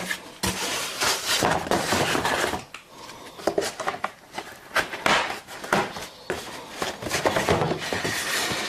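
Handling noise from a polystyrene beehive top and its fitted rim pieces being lifted, turned and pressed down on a cardboard-covered bench: scattered light knocks and clicks with rubbing and scraping, quieter for a moment partway through.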